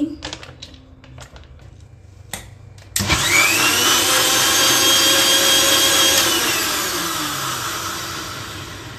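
Electric kitchen blender blending a milk-and-banana protein shake with ice. About three seconds in the motor switches on and whines up to speed, runs loudly for about three seconds, then is switched off and winds down with a falling whine, fading out.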